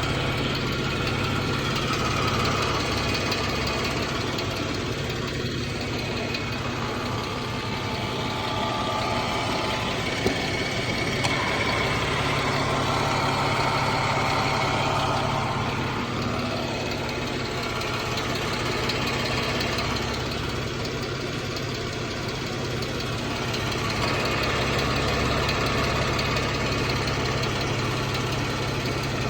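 2014 Jeep Wrangler's 3.6 L Pentastar V6 idling steadily with a rapid ticking from the top end, which the owner suspects is a rocker arm or valve tick.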